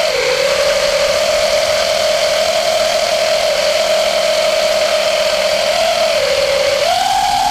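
Brushless motors of a Diatone GT200S racing quadcopter spinning at a steady throttle: a high whine over a rough, noisy buzz. The pitch dips slightly about six seconds in and steps up near the end. The rough noise is the strange motor noise and vibration that began after the motors overheated in a crash.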